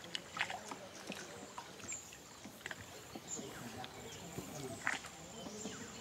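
Faint outdoor ambience of a river in a mangrove forest: scattered short high chirps and small clicks over a quiet background, with one sharper click about five seconds in.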